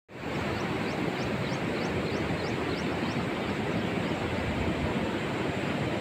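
Steady rushing rumble of a moving vehicle. Over the first three seconds, about ten short, high, rising chirps repeat roughly three times a second.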